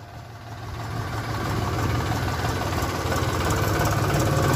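John Deere tractor's diesel engine running at low revs as the tractor rolls slowly forward, growing louder in the first second or two as it comes close.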